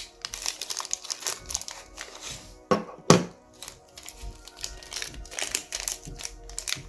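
Background music, with the crinkle and click of plastic parts and packaging being handled and two louder knocks about three seconds in.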